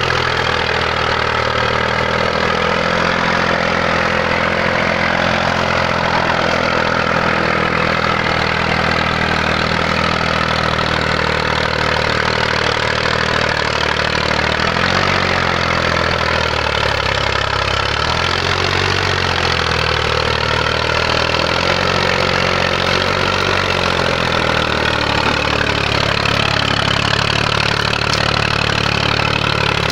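IMT 539 tractor's three-cylinder diesel engine running while hauling a trailer loaded with about four cubic metres of firewood. The engine note is steady, wavers up and down about halfway through, then settles again.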